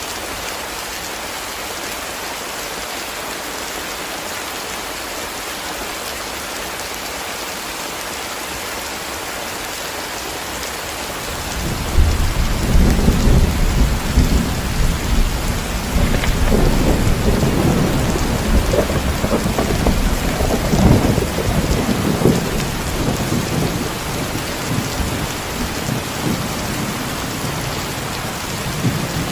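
Steady heavy rain hissing. About eleven seconds in, a long, loud rumble of thunder starts and rolls on under the rain, easing off slightly toward the end.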